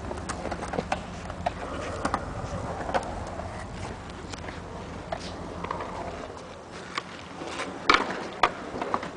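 Skateboards on concrete: a low rolling rumble that drops away about six seconds in, and scattered sharp clacks of boards and wheels. The loudest clacks come in a cluster about eight seconds in.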